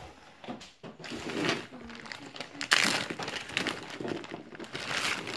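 Plastic zip-top freezer bag crinkling and rustling as a hand rummages inside it for a frozen banana half. The rustling is irregular and crackly, loudest a little before the middle.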